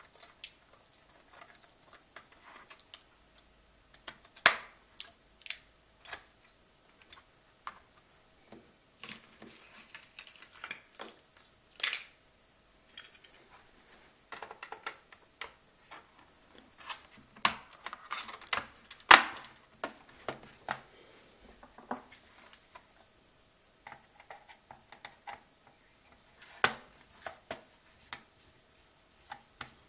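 Irregular clicks, taps and light scraping of small plastic and metal laptop parts being handled, with two sharper clicks standing out, one early and one about two-thirds through.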